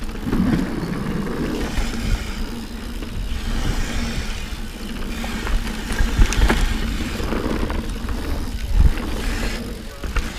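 Santa Cruz Hightower mountain bike ridden fast down a dirt trail: steady tyre rumble and rattle from the bike, with wind buffeting the mic and a couple of sharp knocks over bumps, about six and nine seconds in.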